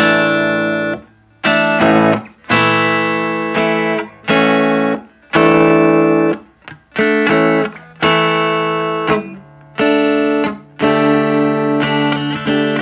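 Electric guitar played through a homebuilt tube amplifier built on the Fender 5F6-A Bassman circuit, driving a bare speaker with no cabinet: a run of strummed chords, most cut short after about a second, the last few left to ring on.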